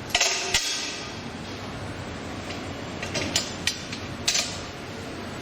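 Metal bracket and screw clinking and knocking against the traffic light housing while a screw is fitted into the bracket's second hole: a cluster of sharp knocks at the start, then three single clicks in the second half.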